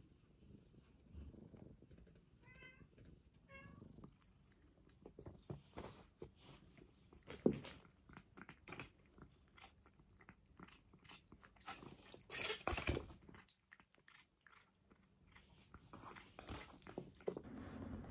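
A kitten gives two short, high mews, then chews and bites with a run of small crunchy clicks and a few louder knocks.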